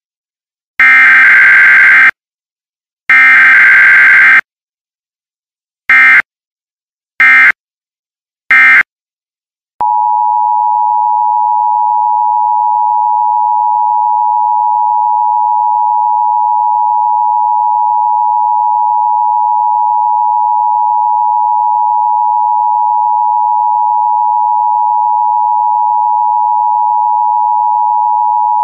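Emergency Alert System tones: two long buzzy digital data bursts of the SAME header, then three short bursts, then the two-tone EAS attention signal starting about ten seconds in and holding steady.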